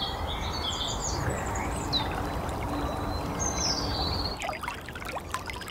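Songbirds chirping and trilling over a steady low background noise, then, about four seconds in, a shallow woodland stream trickling.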